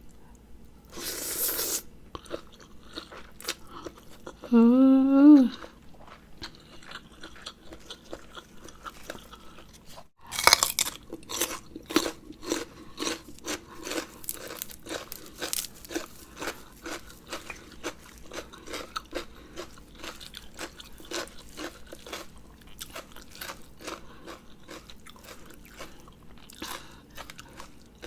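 Close-up crunchy chewing and biting of food: from about ten seconds in, a rapid, steady run of crisp crunches. Earlier come a short rushing noise about a second in and a brief hummed 'mmm' about five seconds in.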